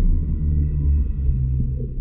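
Underwater hydrophone recording of humpback whales: a steady low rumble with short, low held tones that step down in pitch, and a few faint clicks.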